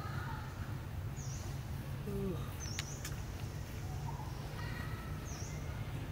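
Outdoor ambience: a steady low rumble, with a short high chirp three times, about a second in, near the middle and about five seconds in.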